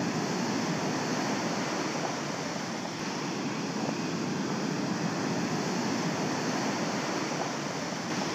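Sea surf breaking and washing up a sandy beach, a steady rushing wash of waves.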